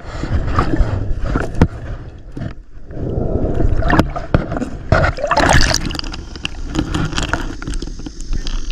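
Water splashing and gurgling around a swimmer, in irregular rushes with a few sharp knocks.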